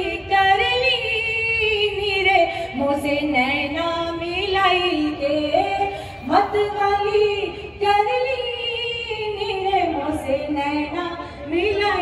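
A woman singing long, wavering held notes that glide up and down, one phrase starting again about six seconds in.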